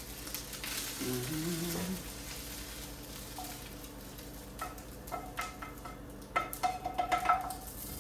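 Fried rice sizzling in a hot pan. Through the second half, a utensil scrapes and clicks against the pan several times with a light metallic ring.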